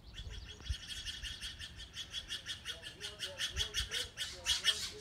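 A bird singing a fast trill of short, high, evenly spaced notes, about six a second, growing louder toward the end.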